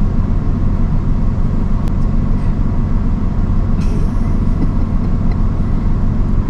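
Off-road vehicle's engine running steadily, a low rumble with a sharp click about two seconds in and a brief rasp about four seconds in.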